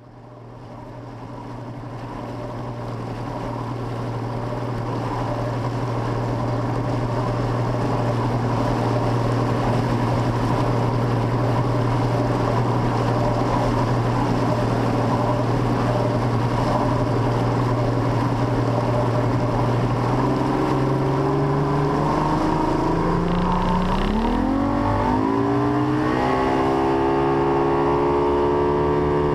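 Bass boat outboard motor heard close up from its cowling, fading in and running steadily at low speed. About 20 seconds in it is throttled up, its pitch rising over several seconds as the boat speeds up, then it holds steady at a higher speed.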